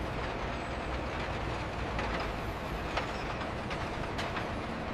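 Steady mechanical rumble and noise of heavy machinery, with a few faint clanks.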